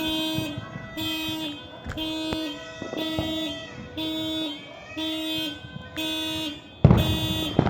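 Car alarm sounding its horn in a steady on-off pattern, about one honk a second. Sharp firework bangs go off through it, with a loud burst of bangs near the end.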